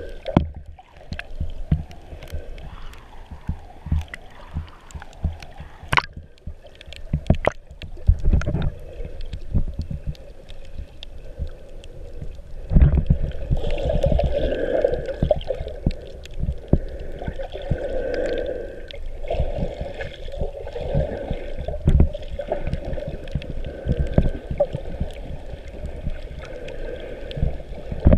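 Muffled underwater water noise picked up by a GoPro camera held below the surface: gurgling and sloshing with irregular low thumps and knocks, louder from about halfway through.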